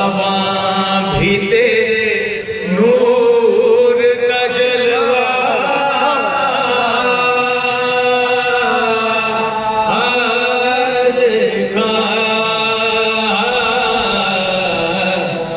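Men's voices chanting a marsiya, an Urdu elegy, unaccompanied: a lead reciter with a group of supporting voices holding long drawn-out notes that bend and waver in pitch.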